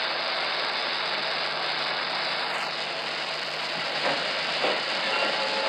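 Steady hiss and crackle of an old 1950s film soundtrack, with a few faint, indistinct sounds about four seconds in. Music begins right at the end.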